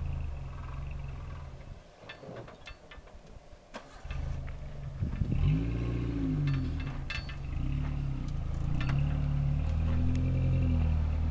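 Lifted Suzuki Samurai's engine running at low revs as it crawls through a deep ditch, with scattered sharp clicks and knocks. About two seconds in the engine sound falls away almost to nothing for a couple of seconds, then comes back and revs up and down.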